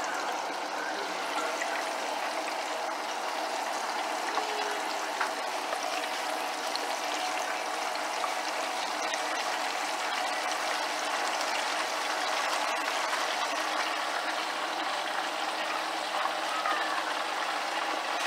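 Hot oil sizzling steadily in a pan as pieces of catfish and onion fry, with small scattered pops.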